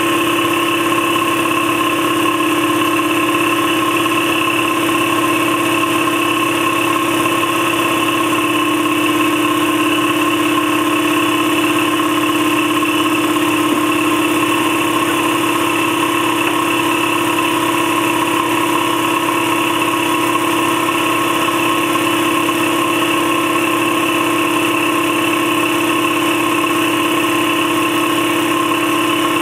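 Campbell Hausfeld 60-gallon, 3.2 hp 240 V twin-piston air compressor running steadily as it pumps up its tank toward the shutoff pressure. It makes a constant, even hum and whine without pauses or changes in pitch.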